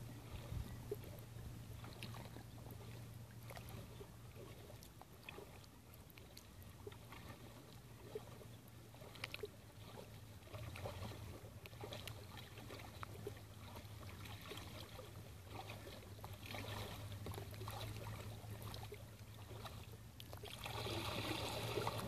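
Calm sea water lapping faintly at a rocky shore, with small splashes and ticks over a steady low hum. A louder rush of noise comes in near the end.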